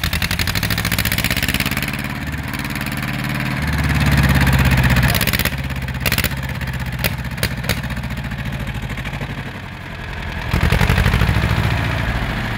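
Ursus C-330 tractor's two-cylinder diesel engine running without a muffler, with a fast, hard exhaust beat. It is revved up a few seconds in, settles back, then is revved again near the end, with a few sharp clicks in the middle.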